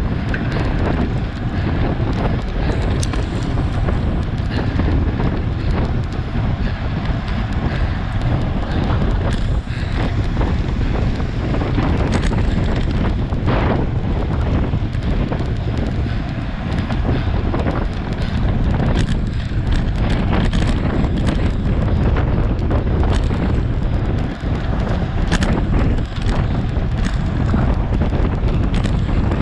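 Wind buffeting the microphone of a camera mounted on a road bike ridden at about 22 to 24 mph: a steady, loud, deep rumble with scattered sharp clicks and knocks.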